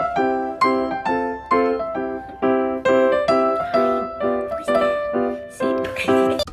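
Background piano music: a steady run of plucked-sounding keyboard notes, about three a second.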